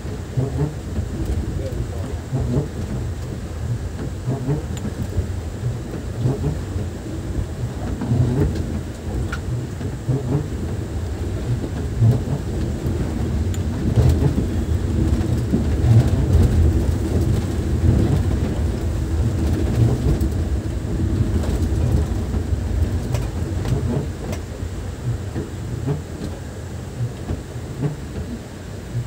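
Heavy rain with a continuous low rumble underneath that swells around the middle and eases again toward the end.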